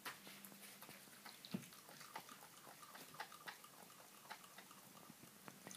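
Dachshund licking and gnawing at a raw marrow bone: faint, scattered wet clicks and scrapes of teeth and tongue on the bone, with one sharper knock about a second and a half in. A faint steady hum runs under the first second or so.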